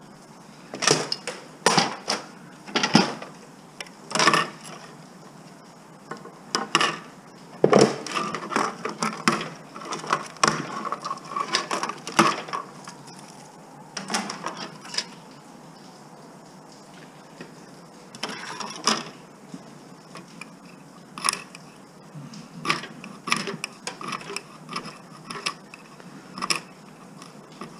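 Irregular clicks, knocks and light clatter of hand tools and metal parts on electronic circuit boards as they are dismantled for scrap.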